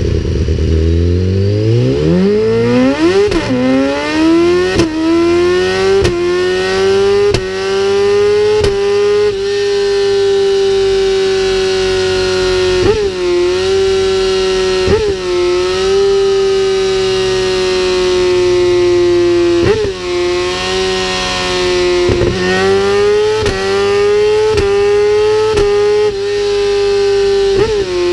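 Race-kitted BMW S1000RR inline-four with a full Akrapovic exhaust revving hard on a rear-wheel dyno. The revs climb fast through the gears, with a brief dip in pitch at each quick upshift over the first ten seconds or so. The engine then holds high revs, broken by several more short dips.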